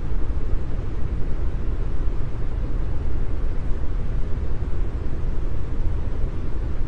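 Brown noise: a steady, deep rushing hiss with no tones, breaks or changes.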